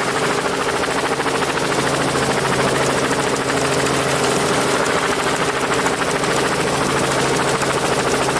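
Helicopter in flight: a steady, rapid beat of the rotor blades over a constant engine hum.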